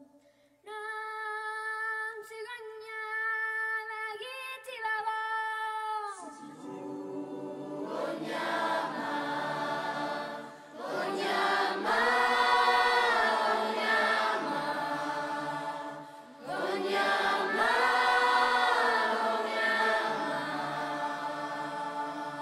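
Youth choir singing a cappella. A single high melodic line holds long notes at first, then the full choir comes in with many voices in harmony about six seconds in. The choir swells louder twice, with short dips between phrases.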